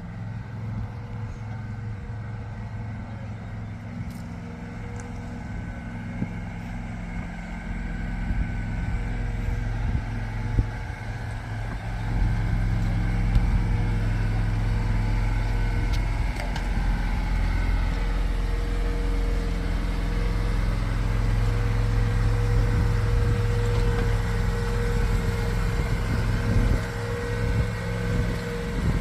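A vehicle engine running steadily, with a low even hum that grows louder about eight seconds in and again a few seconds later.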